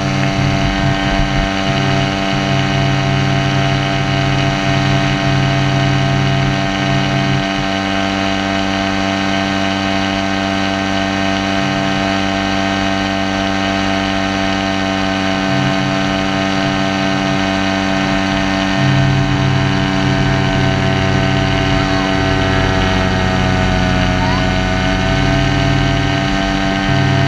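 Paramotor engine running steadily in flight, with wind rumbling on the microphone. Its pitch dips slightly and recovers near the end.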